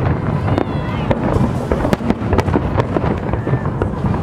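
Fireworks salute: a rapid, irregular run of shell bursts, bangs and crackles over a continuous low rumble.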